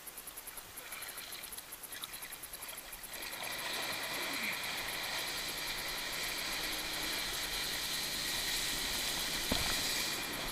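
Water rushing and spraying around a wakeboard as the rider is pulled up and planes behind the towboat. The rush comes in about three seconds in and holds steady, with one short knock near the end.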